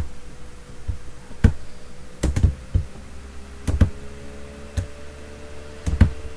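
Computer keyboard keystrokes: a handful of separate, irregularly spaced key presses, a few in quick pairs, over a faint steady hum.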